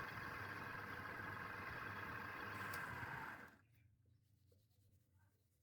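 Wood lathe running with a steady whine while a turning tool scrapes the spinning wood, cutting off suddenly about three and a half seconds in, after which only faint ticks remain.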